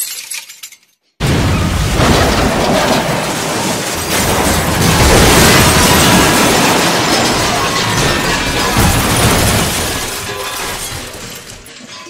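Library sound effect of a big crash of shattering glass and debris that starts suddenly about a second in, runs for about eight seconds and fades out near the end.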